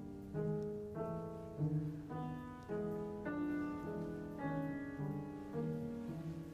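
Piano playing a steady run of chords over low bass notes, a new chord struck about every half second.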